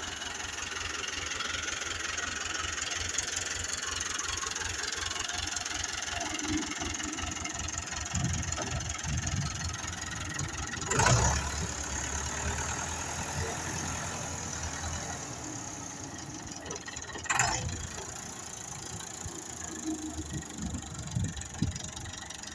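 Excavator engine running steadily, with two sharp clanks, one about halfway through and one about three quarters of the way through.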